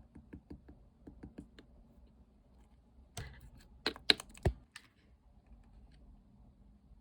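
Hands playing with slime, making small clicks and pops: a quick run of soft clicks in the first second and a half, then a louder cluster of sharp pops about three to five seconds in.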